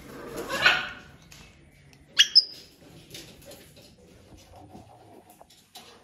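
Pet parrots calling: harsh raspy squawks near the start, then a loud, sharp, shrill screech about two seconds in, followed by faint scattered clicks.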